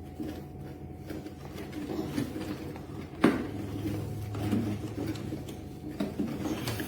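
Plastic parts of a lawn mower and its grass catcher being handled and fitted, with rustling and knocks and one sharp click about three seconds in, followed by a low hum for a couple of seconds.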